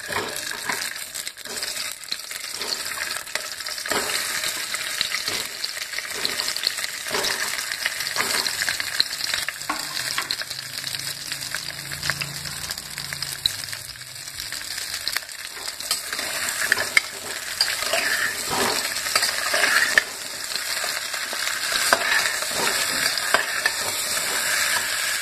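Stuffed pointed gourds (parwal) sizzling as they shallow-fry in a little oil in a pressure cooker, with scattered knocks as they are set in by hand and turned with a metal spoon.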